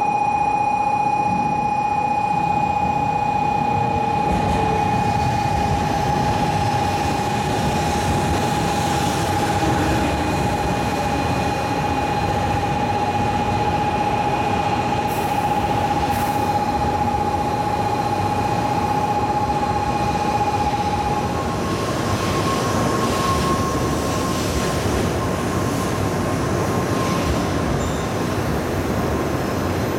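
JR West N700 series Shinkansen train running in alongside the platform and slowing, a steady rumble of wheels on rail and rushing air. A steady high warning tone sounds over it and stops about two-thirds of the way through, after which a faint high whine is heard.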